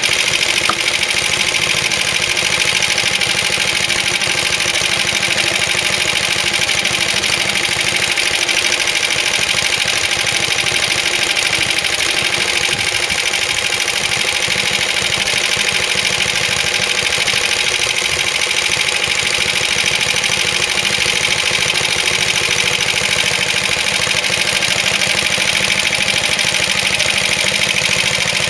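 Suffolk Iron Foundry 75G14 four-stroke side-valve single-cylinder engine on a Suffolk Colt cylinder lawnmower, running steadily at an even speed.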